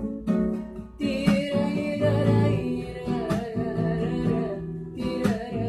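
Acoustic guitar plucked in an accompaniment, with a voice singing a wavering melody line over it, without clear words.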